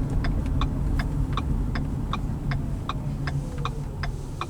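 Turn-signal indicator ticking evenly, a little under three clicks a second, over the low rumble of a 2013 Ford Fusion Hybrid's cabin on the move.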